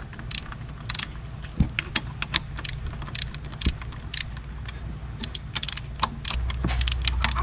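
Hand ratchet clicking and steel tools clinking in short, irregular bursts as the camshaft bearing cap bolts on a Sprinter diesel's cylinder head are drawn down a turn at a time, over a steady low hum that grows louder near the end.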